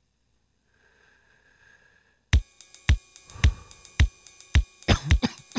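Near silence with a faint hiss, then about two seconds in a song intro starts: a programmed drum beat hitting about twice a second.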